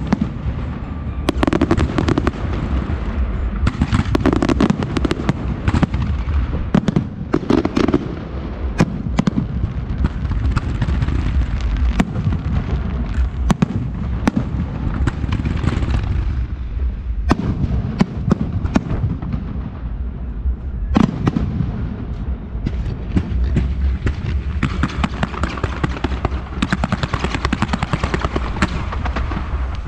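Fireworks display: aerial shells and firework effects going off in many sharp bangs close together, over a continuous low rumble.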